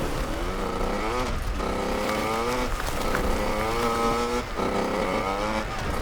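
Hard enduro motorcycle engine accelerating hard through the gears, its pitch climbing and dropping back at each shift about four times.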